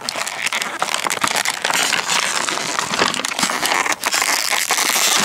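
Thin clear plastic toy packaging crinkled and crumpled by hand: a dense crackling made of many sharp little crackles.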